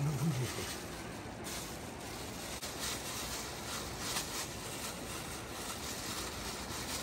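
Plastic bag crinkling and rubbing as a hand inside it works tikka masala powder into raw chicken in a steel bowl, over a steady outdoor hiss.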